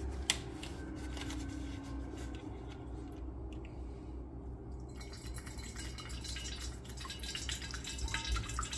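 Juice poured from a carton through a plastic funnel into a glass gallon jug, a quiet trickling and dripping that grows stronger from about halfway through. A light tap sounds near the start, over a steady low hum.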